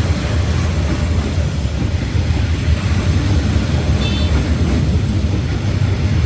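Passenger train hauled by a D19E diesel-electric locomotive running, a steady low rumble of engine and wheels on the rails.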